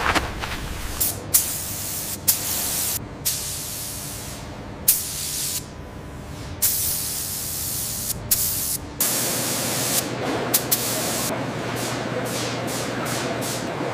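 A string of hissing sprays, each lasting about a second, starting and cutting off abruptly, with short gaps between them.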